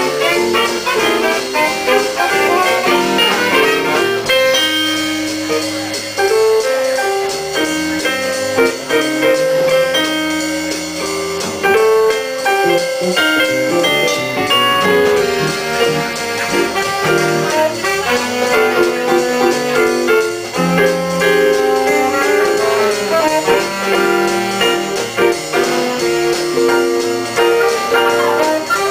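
A live swing band playing a jazz number: saxophones and trumpets in the horn section over piano, electric guitar, bass and drums.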